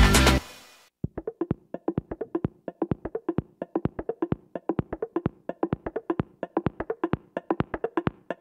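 Electronic dance background music: the full track drops out within the first second, leaving a break of quick, dry percussive clicks, about five a second, until the full beat comes back at the very end.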